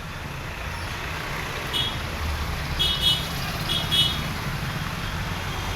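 Crankcase cover bolts on a TVS Star Sport engine being tightened with an 8 mm T-handle wrench: a few short, high metallic clinks over a steady low background rumble.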